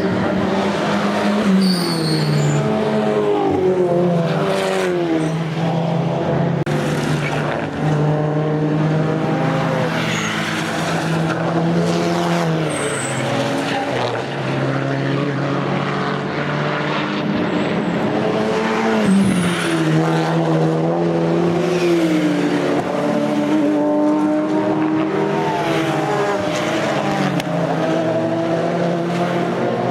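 Race cars with loud open exhausts passing one after another. Their engine notes overlap and keep falling and rising as the revs drop and climb through gear changes.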